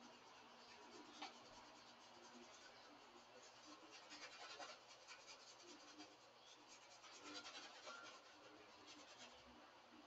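Faint scratching of a paintbrush stroking across a canvas, in short clusters of strokes about four seconds in and again from about seven to nine seconds.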